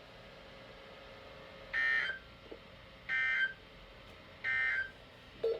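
Emergency Alert System end-of-message data bursts: three short, identical warbling digital tones about a second apart, marking the end of the alert or test message.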